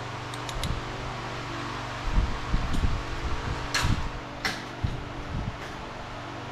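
Steady mechanical hum, with a few light knocks and two sharp clicks near the middle, as of tools or parts being handled.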